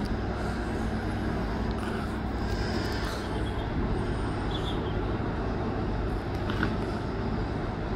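A vehicle engine running steadily, a constant low rumble under even background noise, with no distinct event standing out.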